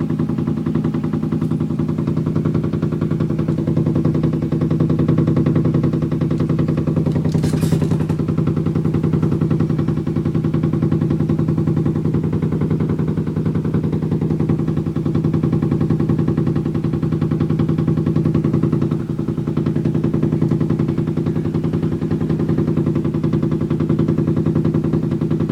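Washing machine on its spin cycle, running loudly with a low hum and fast, steady knocking as the machine slams against the wall and the floor. There is one louder clatter about seven and a half seconds in.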